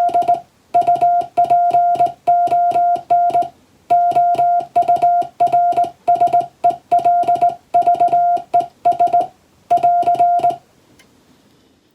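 A Morse code (CW) tone at a steady mid pitch, keyed on and off in short dots and longer dashes, sending English Morse at a practice speed. The sending stops about ten and a half seconds in.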